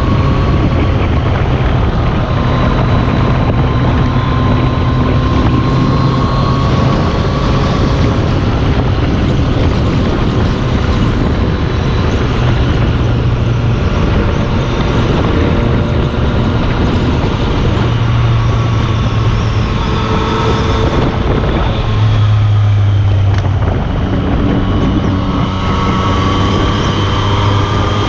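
Yamaha FZ-09's 847 cc inline-three engine breathing through an Akrapovič carbon-fibre exhaust, running steadily under light throttle while the bike is ridden through easy turns. The revs rise and fall gently, dip briefly about three-quarters of the way through, then climb again.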